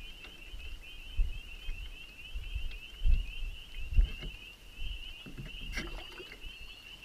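Chorus of spring peepers: many short, rising peeps overlapping in a steady high-pitched chorus. A few low thumps come and go over it.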